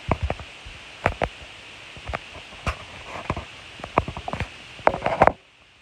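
Handling noise: a string of irregular light knocks, clicks and rubbing as small objects are moved about by hand, louder in a cluster near the end, then breaking off suddenly.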